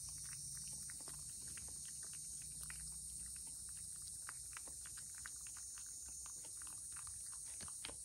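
A cat licking a Churu lickable paste treat out of a small plastic bowl: quick, irregular wet tongue clicks, several a second.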